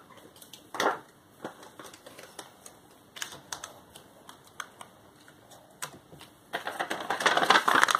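Paper rustling and light tapping as paper cut-outs are handled and pressed onto a paper picture: scattered short clicks, one louder rustle about a second in, and a longer, denser rustle near the end.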